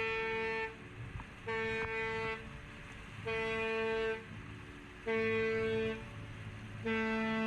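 A vessel's horn sounding five short blasts about two seconds apart, each a steady tone of under a second. Five or more short blasts is the danger or doubt signal used to warn off another vessel.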